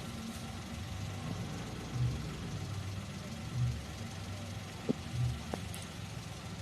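Car engine idling low, its hum swelling about every second and a half, with two faint clicks about five seconds in.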